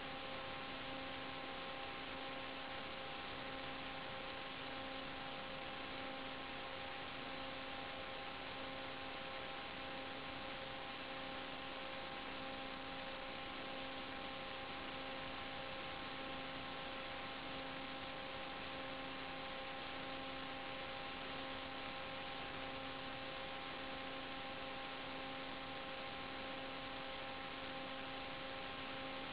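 Steady electrical hiss with a constant hum of several fixed tones, unchanging throughout: noise on the audio channel of an analog FPV video link rather than the quadcopter's motors.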